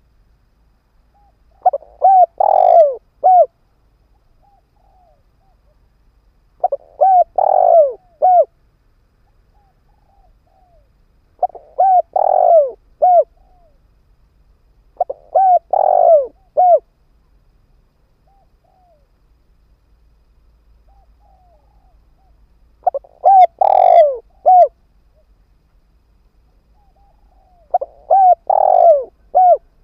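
Spotted dove (chim cu gáy) cooing: six phrases of several quick coos each, a few seconds apart. This is a ground decoy bird's call, used to lure wild spotted doves.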